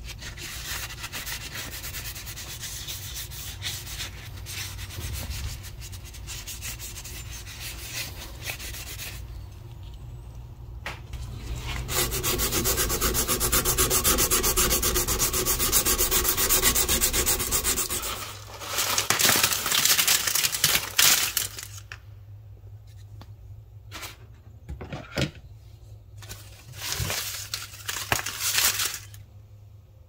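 Sandpaper rubbing back and forth by hand on the steel head of a hatchet multitool, finish-sanding the metal. The loudest part is a long run of rapid, even strokes about halfway through, followed by shorter bursts of sanding with pauses between.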